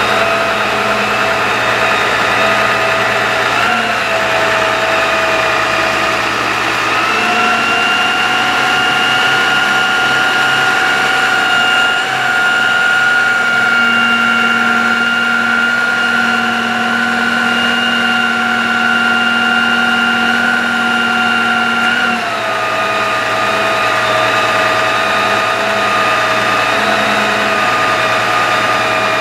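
2010 Dodge 5500 bucket truck's engine running with the PTO engaged, driving the hydraulics of its ETI boom as the boom moves. A steady whine steps up in pitch about seven seconds in and drops back down about twenty-two seconds in.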